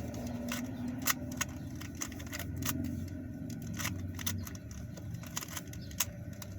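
Plastic Rubik's Cube being twisted rapidly, its layers clicking and clacking in a quick, irregular run of turns while one face is solved.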